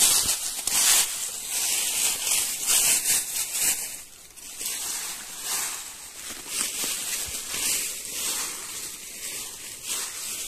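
Hands brushing and scraping aside dry leaves and forest-floor litter, in a run of irregular rustling sweeps that are loudest in the first four seconds and softer after.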